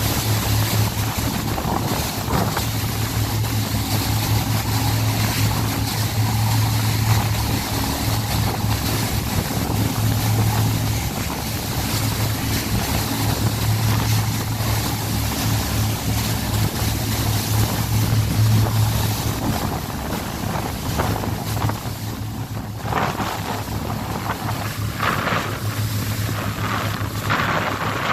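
A pilot boat's engines running steadily under way, a constant low hum, with water rushing along the hull and wind buffeting the microphone. Several louder rushes of wind and spray come in the last few seconds.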